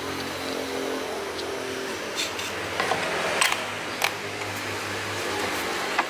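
Steady low hum of a running engine, with a few short sharp clicks in the second half.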